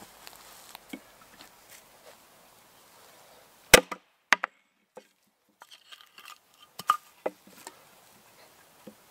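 A hatchet splits a round of wood on a chopping stump: one sharp, loud chop about four seconds in, a smaller knock half a second later, then a few light wooden knocks as the wood is handled.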